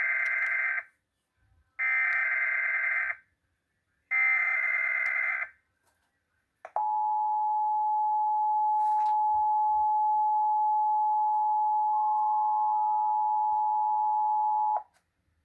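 Emergency Alert System tones: three short bursts of SAME header data tones about a second apart, then the steady two-tone EAS attention signal held for about eight seconds. This is the opening of a broadcast test of the emergency alert system.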